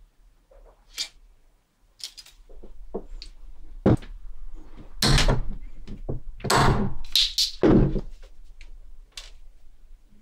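Irregular knocks, clicks and scraping from small objects and tools being handled on a workbench. The longer, loudest scrapes come in the second half, over a faint steady electrical hum.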